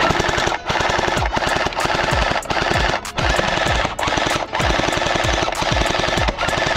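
Rapid automatic gunfire in sustained bursts, broken by a few brief pauses, with deep thuds among the shots.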